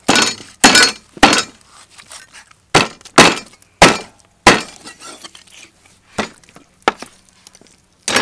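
Heavy cleaver chopping raw pork ribs, bone and all, on a wooden chopping block: about ten sharp, loud chops at an uneven pace, some coming in quick pairs.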